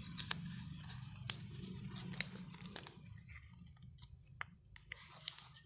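Light handling noises: scattered small clicks and rustles of hands working with the glued plywood block and sandpaper. Under them is a low steady hum that fades out about halfway through.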